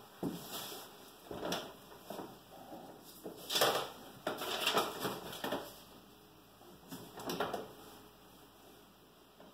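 Sheet music rustling as the pages are handled and set on the piano's music stand, in several short bursts, with clothing rustling as the player settles at the piano.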